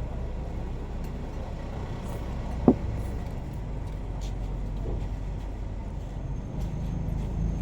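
Steady low rumble of motor vehicle engines, with one brief sharp sound about two and a half seconds in.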